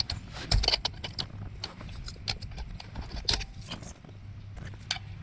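Small irregular clicks and taps of the airbag module's wiring connectors being unlocked and unplugged by hand, over a low steady hum.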